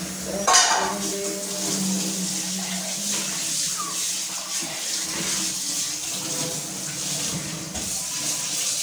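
Water running steadily from a tap, with a single sharp knock about half a second in.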